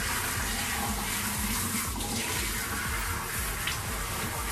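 Kitchen faucet's pull-out sprayer running steadily, its water spraying onto and rinsing a dog's wet coat in the sink.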